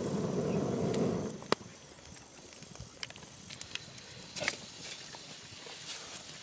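Thin sticks being handled and pushed into a small wood fire under a clay pot: scattered sharp clicks and knocks of twigs. A dull rushing noise fills about the first second.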